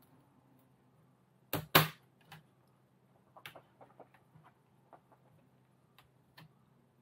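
Razer Blade Stealth 13 laptop bottom case snapping onto its hinge-side clips: two sharp clicks in quick succession about a second and a half in, then light scattered taps and clicks as hands press along the case to close the seam.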